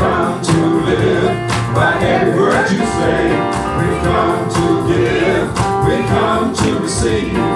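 Gospel praise song, with singing voices over a band playing a steady drum beat.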